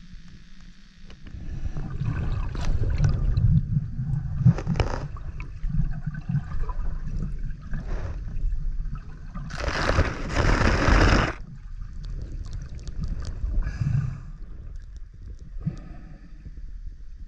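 Muffled water sounds picked up by a camera held underwater while swimming: a low, uneven sloshing and gurgling, with a louder rush of water for a couple of seconds about ten seconds in.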